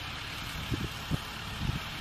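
Wind buffeting the microphone outdoors: a steady hiss with irregular low thumps from about two-thirds of a second in.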